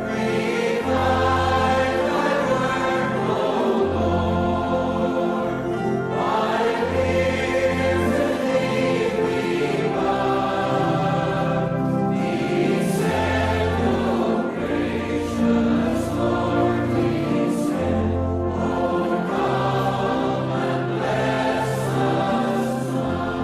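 Choir singing a hymn with instrumental accompaniment and a steady bass line.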